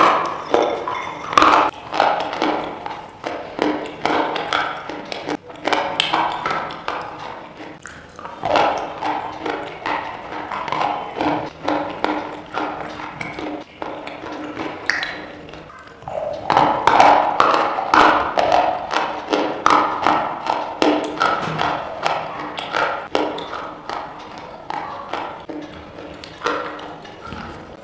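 Close-up crunching and chewing of something hard and brittle: a dense run of sharp, crisp cracks and snaps, loudest just after the start and again a little past halfway.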